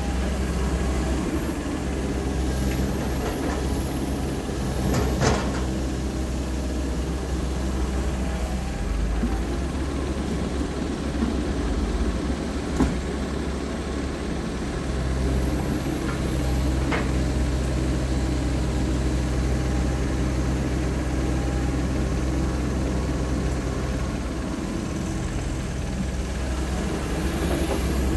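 Komatsu PC195LC excavator's diesel engine running steadily under hydraulic load while it digs and swings, its note shifting a few times as the work changes, with a few short knocks from the working machine.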